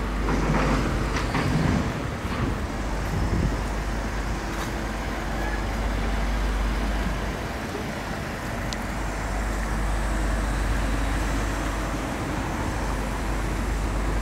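City road traffic: a steady rumble of passing cars, a little louder in the first two seconds.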